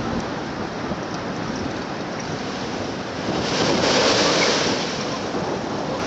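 Rough sea with high waves, surf washing continuously, and a bigger wave crashing louder about three and a half seconds in.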